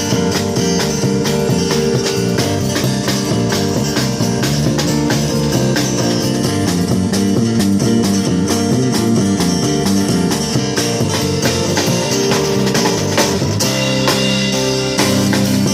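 Live amplified band music: guitars over a drum kit keeping a steady beat, the music shifting to a new passage about thirteen seconds in.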